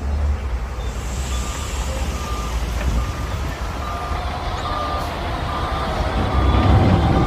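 Heavy diesel machine running with its reversing alarm sounding: short high beeps a little faster than once a second over a steady low engine rumble, which grows louder near the end.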